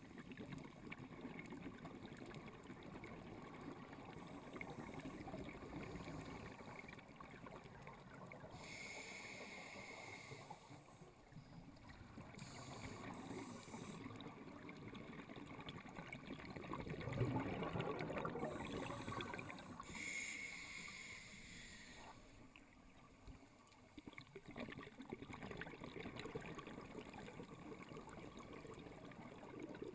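Scuba diver breathing through an open-circuit regulator underwater: hissing inhalations through the regulator, about nine and twenty seconds in, and a louder gurgle of exhaled bubbles between them.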